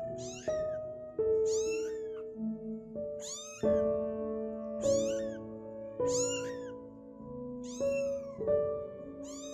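A two-week-old calico kitten meowing over and over, short high-pitched meows about once a second, each dropping in pitch at its end. Soft background music of held notes plays underneath.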